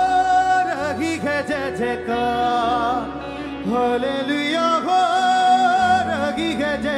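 Music: a Hindi worship song, with a choir singing over keyboards and a bass line.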